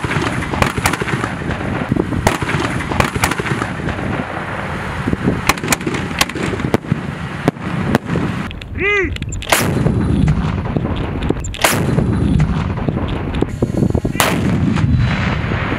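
Festive salute: 100-mm MT-12 Rapira anti-tank guns firing salute volleys while truck-launched fireworks go up and burst, a dense run of bangs and crackling. A brief whistle comes about nine seconds in, and a few single loud shots follow in the second half.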